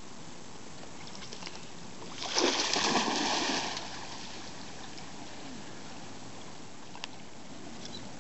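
A dog plunging into shallow lake water: a burst of splashing about two seconds in that lasts a second and a half.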